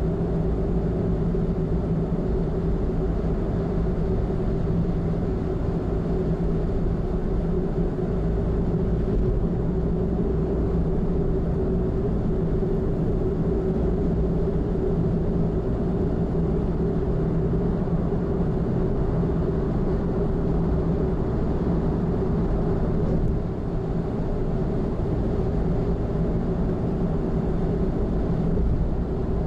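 Steady running noise of a car at expressway speed heard inside the cabin: an even hum with tyre and road noise.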